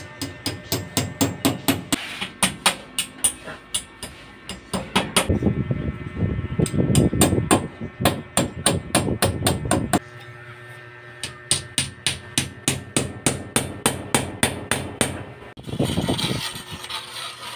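Small steel mason's trowel working cement mortar onto a hollow-block wall and against a steel guide bar: runs of sharp tapping clicks, about three a second, with a denser, heavier stretch of slapping and scraping in the middle and a rough scrape near the end.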